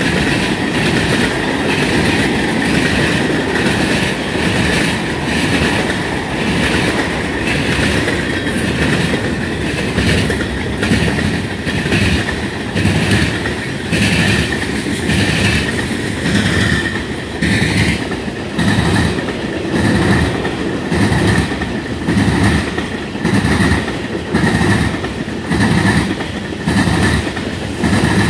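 Freight train of tank cars and covered hopper cars rolling past close by. Its wheels clack over the interlocking's track joints in a regular rhythm that settles to about one beat a second in the second half. A steady high-pitched wheel squeal runs underneath.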